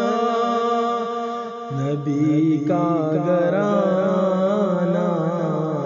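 A man's voice singing an Urdu naat, drawing out long, wavering held notes; about two seconds in the melody drops to a lower note and goes on wavering.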